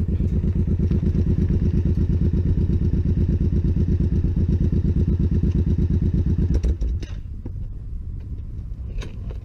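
Suzuki Boulevard cruiser motorcycle engine running at idle with an even pulsing beat, then switched off about seven seconds in.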